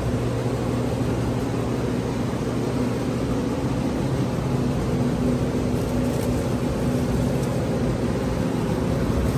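Steady engine hum and road noise inside a moving car.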